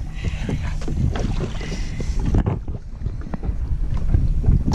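Wind buffeting the microphone in a dense low rumble, over water splashing against the side of a small boat. There is a little more splashing hiss in the first couple of seconds.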